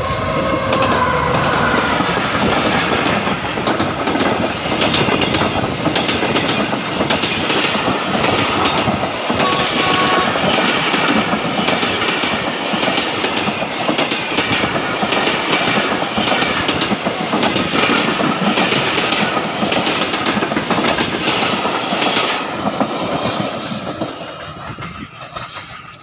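Passenger express led by a GE U40 diesel-electric locomotive passing close by at speed without stopping. The locomotive goes by at the start, then a long string of coaches rattles past with a steady clickety-clack of wheels over rail joints, which fades away in the last few seconds as the end of the train recedes.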